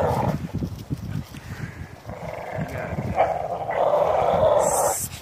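American Pit Bull Terriers growling as they tug and hang on a spring pole rope, over irregular thumps and scuffling from their jumping. A rough, steady growl builds in the second half and stops just before the end.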